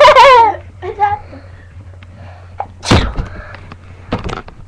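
A person's loud wavering vocal noise sliding down in pitch and cutting off about half a second in, then a short sharp sneeze about three seconds in, followed by a smaller sneeze-like burst a second later.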